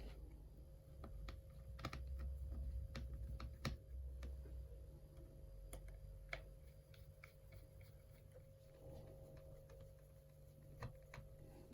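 Faint, irregular light clicks and taps from handling a tablet and small tools on a workbench, several in quick succession and then more sparse. A low steady hum and a faint steady whine sit underneath.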